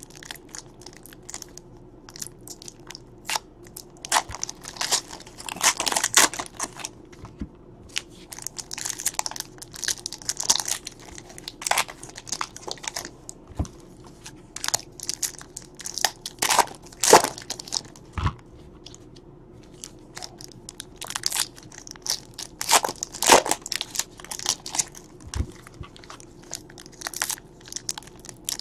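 Foil-wrapped baseball card packs being torn open and crinkled by hand, in irregular bursts of crackling with short pauses between them.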